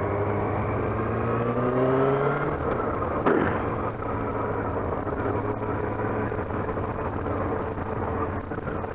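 Yamaha R6's inline-four engine accelerating, its note rising for about two and a half seconds, then a brief break as it shifts up, after which it runs on under steady wind noise from a helmet-mounted mic.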